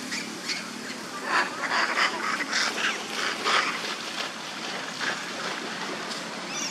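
Macaques playing in water, giving a run of short, harsh squeals between about one and four seconds in.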